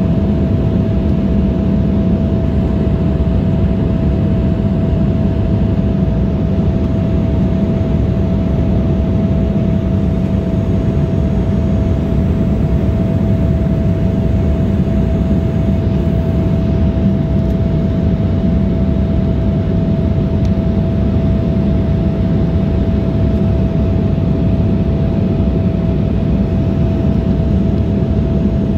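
Steady jet cabin noise aboard an Embraer E175: the drone of its GE CF34 turbofan engines and rushing air, with a steady hum running through it.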